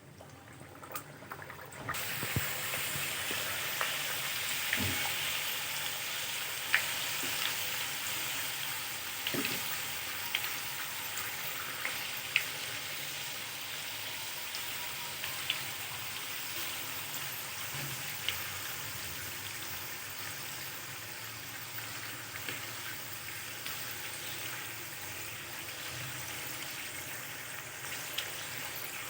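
Methi puris deep-frying in hot oil: a steady sizzle that starts suddenly about two seconds in, with scattered sharp crackles and pops.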